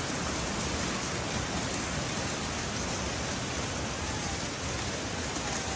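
Heavy hail pelting a store roof, a steady dense roar of countless impacts.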